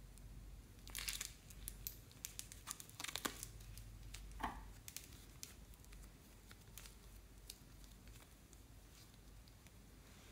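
Fluffy slime being stretched and folded by hand: soft crackling and tearing, busiest between about one and three and a half seconds in, then thinning to scattered faint clicks.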